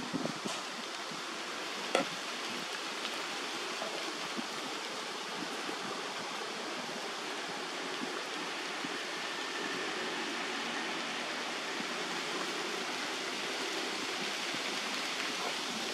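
Steady rushing outdoor noise with no clear pitch, like running water, with a single short tap about two seconds in.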